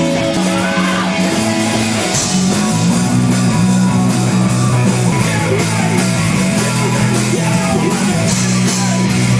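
Live rock band playing loud, with electric guitar, bass and drums, recorded through a camcorder's microphone.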